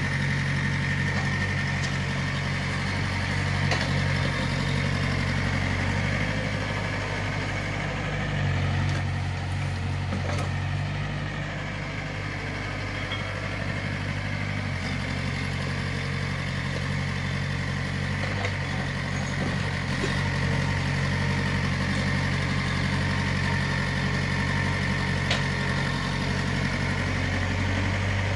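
Small excavator's diesel engine running steadily under load changes, with a steady high whine over it and a few light knocks.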